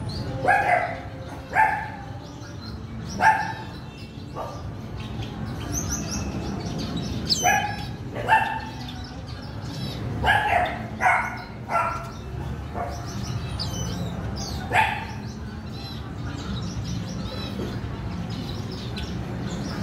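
A dog barking in short, sharp barks, about a dozen, with a quick run of them about ten seconds in. Faint high chirps of small cage birds sound between the barks over a steady low hum.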